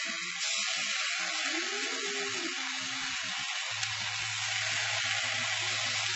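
Heavy whipping cream sizzling steadily as it hits hot bacon grease in a frying pan. A low hum joins about halfway through.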